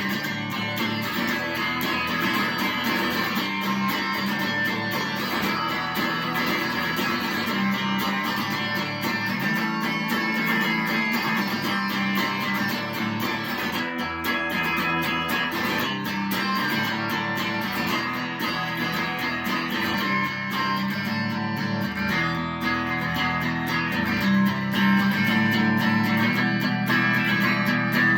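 Instrumental outro played on guitar, strummed steadily, with no singing.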